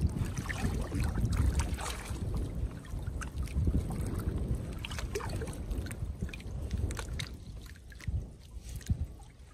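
Water splashing and trickling as a fishing net is pulled up by hand out of the water beside a floating plastic-barrel raft, with scattered small splashes and clicks over a steady low rumble.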